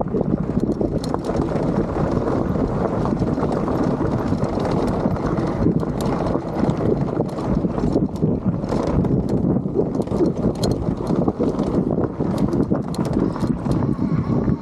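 Suspended electric mountain bike rolling down a rocky trail: tyres grinding over rock with frequent sharp clacks and rattles as it hits stones. Wind buffets the microphone throughout.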